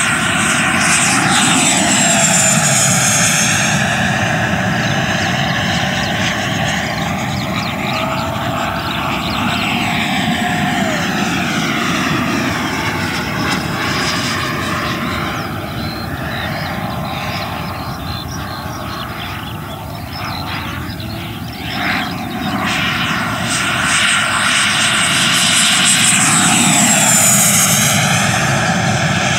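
Black Horse Viper XL RC jet's 100 mm WeMoTec Midi Evo electric ducted fan running at high power, drawing about 119 amps: a continuous high-pitched whine and air rush. It swells and then drops in pitch as the jet flies past, once about two seconds in and again near the end, and is a little quieter around twenty seconds in.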